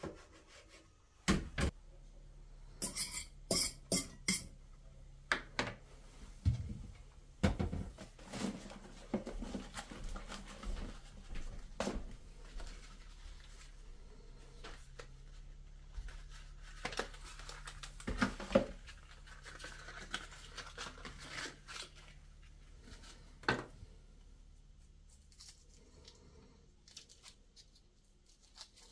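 Irregular clinks, clicks and knocks of kitchen utensils and dishes being handled, with a faint steady hum underneath.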